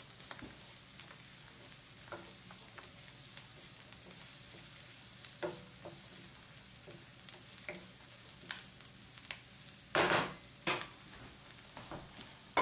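Chopped onion, ginger and herbs sizzling in hot olive oil in a frying pan over high heat, stirred with a wooden spatula that scrapes and taps the pan now and then. About ten seconds in come two louder knocks.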